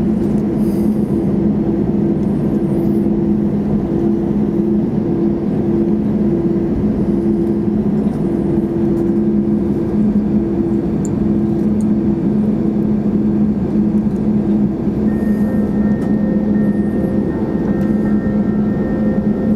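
Airbus A321 cabin noise while taxiing after landing: a steady rush of engines at idle and air-conditioning, with two steady low hum tones. A faint higher tone joins about fifteen seconds in.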